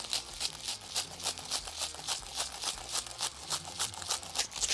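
Spice shaker shaken hard in a quick, even rhythm, about six to seven shakes a second, seasoning the second side of a raw steak.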